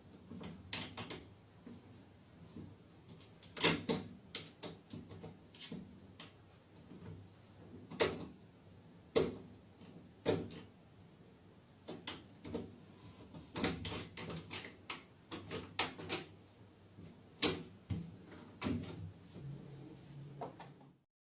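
Irregular knocks and clatters, some sharp and some soft, roughly one or two a second, with quieter rustling between them.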